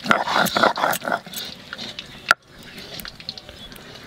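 Stone grinding slab and stone pestle (sil-nora) grinding ginger, green chillies and cumin into a wet paste. Stone rasps rhythmically on stone for about the first second, then the scraping goes quieter, with one sharp knock about two seconds in.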